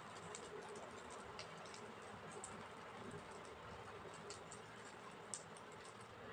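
Egg omelette frying in oil on a dosa griddle: a faint sizzle with scattered small pops and crackles.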